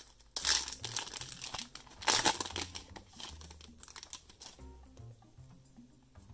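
Foil wrapper of a Donruss basketball card pack being torn open and crumpled by hand: two loud crinkling stretches in the first three seconds, then softer rustling as the cards come out, over soft background music.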